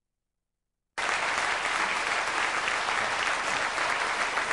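Studio audience applauding, a dense steady clapping that cuts in abruptly about a second in.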